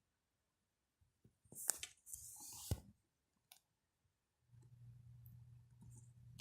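Mostly near silence, broken by a few sharp clicks and a short rustle of handling about two seconds in; a low steady hum begins after the middle.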